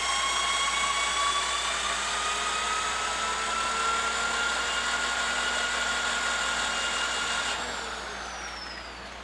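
Electric drill turning a lifter-bore reamer through a bronze lifter bushing in a cast-iron engine block: a finishing pass, fed slowly because the bushing test-fitted tight. The motor runs with a steady whine that climbs slightly in pitch, then is released a little before the end and winds down.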